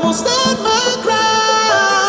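Hardstyle music playing: a melody of held notes that step in pitch, with no words sung.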